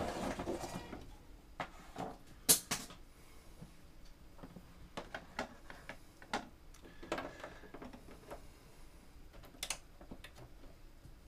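Scattered clicks and knocks of hands handling the opened projector's plastic casing and plugging in its power cord, with two sharp knocks about two and a half seconds in the loudest.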